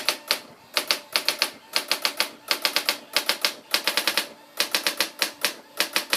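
Brother AX-600 electronic typewriter printing its self-demo: its daisy wheel strikes in quick runs of several characters at a time, with short pauses between the runs.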